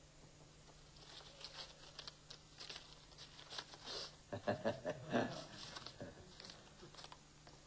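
Paper rustling and crinkling in a run of short, irregular crackles as a newspaper is opened and handled, busiest around the middle.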